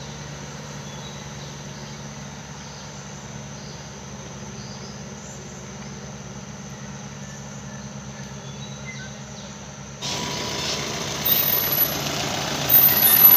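An engine idling steadily with a low, even hum. About ten seconds in, the sound cuts abruptly to a louder, wider outdoor noise with high-pitched chirping on top.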